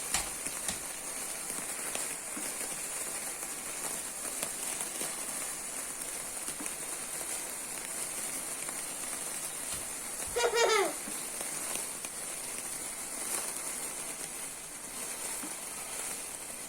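Small handheld firework fizzing steadily with faint scattered crackles. About ten seconds in, one short squeal glides downward in pitch.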